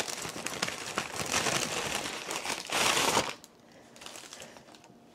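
Paper rustling and crinkling as a brown paper lunch bag is handled and a hamburger in checkered paper wrap is drawn out of it. The crinkling is loudest a little before three seconds in, then it drops away to a fainter rustle near the end.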